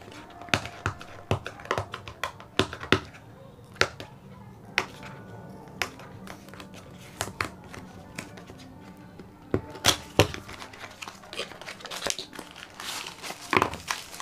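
A small cardboard battery box being opened by hand and its plastic wrap handled, giving irregular clicks, taps and crinkling, with faint music underneath.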